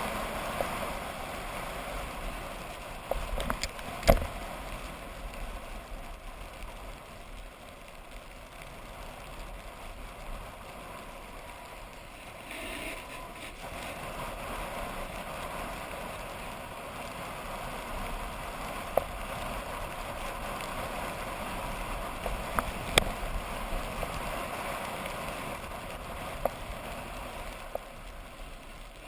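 Steady scraping hiss of a rider sliding and carving down a packed-snow slope, mixed with wind on a wearable action camera's microphone. A few sharp knocks from the camera mount, the loudest about four seconds in and again past the middle.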